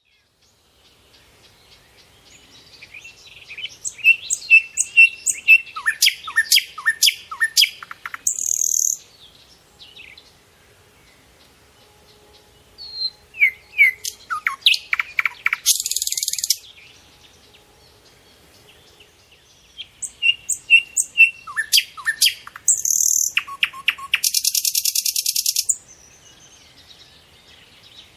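A songbird singing the same song three times, several seconds apart. Each song is a quick run of chirps and downslurred whistled notes that ends in a loud, harsh buzz.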